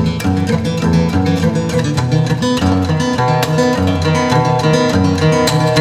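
Solo acoustic guitar playing a fast fingerpicked instrumental, quick treble notes over a steady, evenly pulsing bass line.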